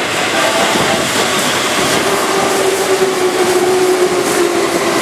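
Keihan 2200-series train passing through the station: steady running noise of the cars' wheels on the rails. A faint low tone slowly drops in pitch from about two seconds in.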